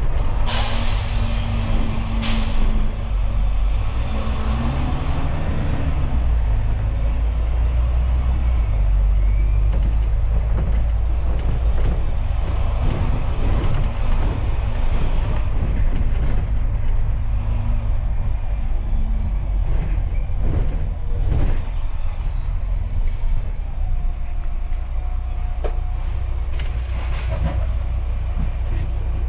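Double-decker bus under way, heard from inside: a steady low engine and road rumble with the occasional knock and rattle from the bodywork.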